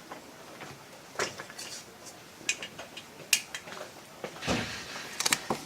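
A few light, sharp clicks and knocks of small metal tools being handled on a work surface, spread across a few seconds with a quick cluster near the end.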